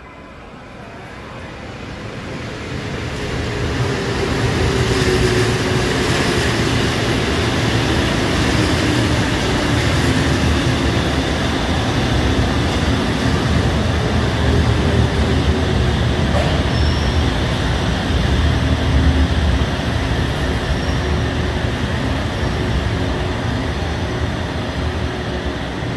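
Busan Metro Line 1 thyristor-chopper subway train entering the station. Its rumble builds over the first few seconds into a loud, steady run of wheels on rail. Under it a motor hum slowly falls in pitch as the train slows.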